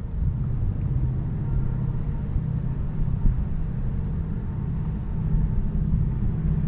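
Steady low rumble of a distant engine.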